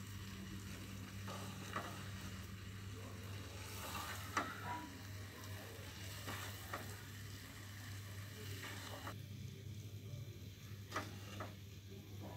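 Semolina halwa cooking in milk in a wok, sizzling while a silicone spatula stirs and scrapes through the thick mixture, with a few clicks of the spatula against the pan.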